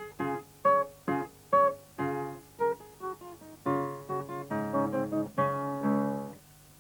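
Background music: a bouncy keyboard tune played in short, detached notes and chords, a few every second.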